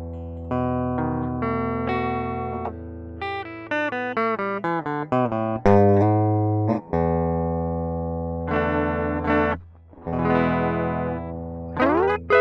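Guitar played through effects pedals. Long, sustained ringing notes give way to a quick run of short picked notes, then long held notes again, with a brief drop-out about ten seconds in.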